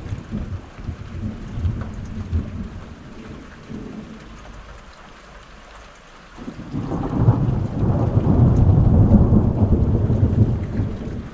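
Rolling thunder: a rumble dies away over the first few seconds, then a second, louder peal builds about six seconds in and rumbles on before easing near the end. Rain falls steadily underneath.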